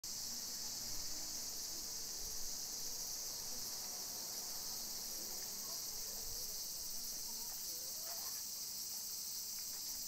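Steady, high-pitched chorus of insects calling without a break.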